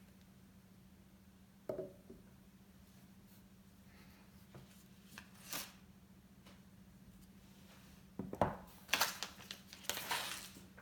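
iPhone box and its wrapping being handled: a soft knock about two seconds in, a few light clicks, then a flurry of crinkling and tearing noises near the end.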